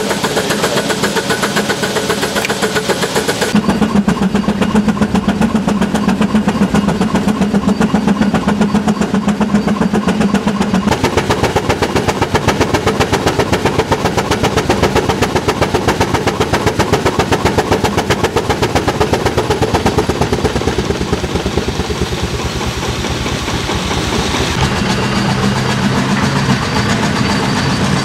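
Antique engine running with a fast, even beat; the sound changes abruptly a few times.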